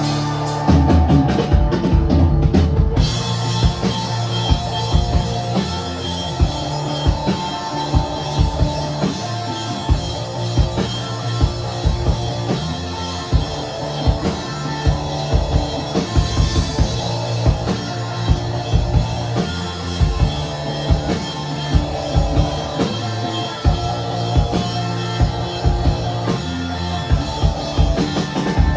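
Rock band playing live, with a drum kit keeping a steady beat over held instrument notes.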